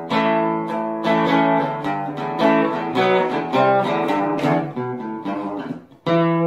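Background music on acoustic guitar, a run of picked notes; near the end it briefly drops out, then a chord rings on.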